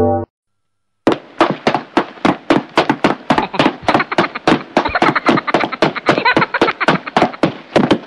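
Treadmill running with two cats walking on the belt: a fast, even series of sharp knocks, about four to five a second, starting about a second in.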